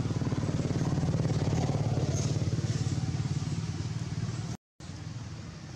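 A small engine running steadily with a rapid low pulsing. The sound cuts out completely for a moment about four and a half seconds in, then carries on somewhat quieter.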